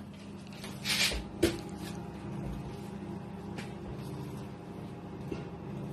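Built-in microwave oven running with a steady hum while it heats popcorn kernels in a covered popcorn bowl. A short rustle about a second in and a sharp click about a second and a half in.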